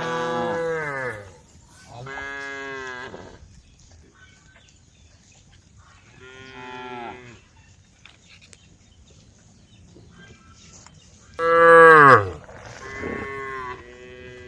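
Cows mooing: about five or six separate calls, each a second or so long, several sliding down in pitch as they end. The loudest call comes about three-quarters of the way through, followed closely by two shorter ones.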